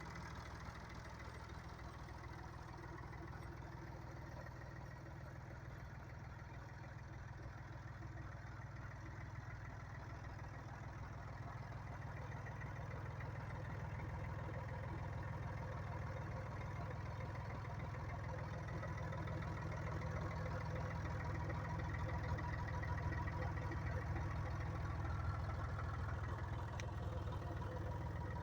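Three-cylinder Perkins diesel engine of a 1993 Landini Blizzard 50 tractor running steadily at idle. It grows somewhat louder in the second half.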